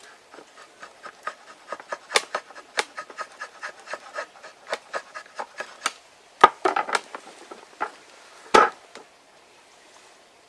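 Drawknife shaving dried ash wood on a shaving horse in quick short scraping strokes, about four a second. Past the middle come two louder wooden knocks, then the work stops.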